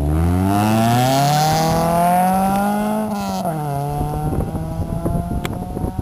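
Nissan Sunny GTI's 2.0-litre four-cylinder exhaust as the car accelerates away hard: the revs climb for about three seconds, drop sharply at an upshift, then climb again more slowly as the car pulls away into the distance.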